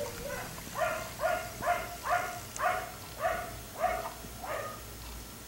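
Black Labrador retriever barking in a steady series, about nine barks at roughly two a second, stopping about four and a half seconds in.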